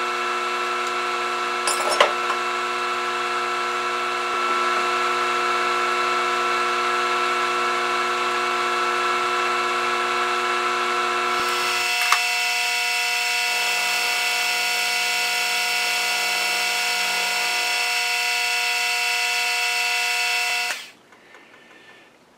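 Milling machine running as an end mill machines a small key held in a collet block: a steady whine of several tones. The tones shift about halfway through, and the machine winds down and stops near the end.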